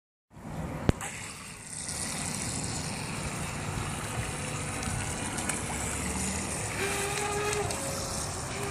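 Traxxas Vector 28 electric RC speedboat running out across the water: a steady rushing noise with a thin, steady motor whine coming in near the end. A single sharp click about a second in.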